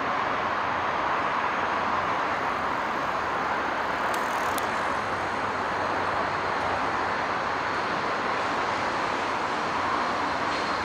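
Steady roar of distant urban road traffic: an even rushing noise with no single vehicle standing out.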